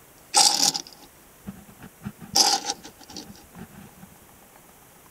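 Two short scrapes, about two seconds apart, as a diecast NASCAR stock car is turned around by hand on a tabletop.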